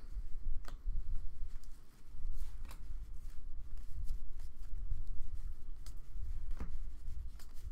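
Baseball trading cards handled and flipped through by hand, sliding against one another, with a scatter of short light clicks and taps.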